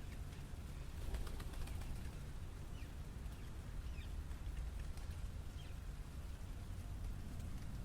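City street ambience: a steady low traffic rumble, with a quick flurry of bird wingbeats about a second in and several short bird chirps.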